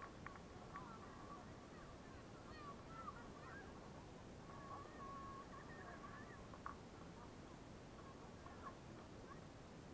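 Faint, distant shouts of football players calling across the pitch: short wavering calls and one longer held call about five seconds in, over a low steady outdoor hiss.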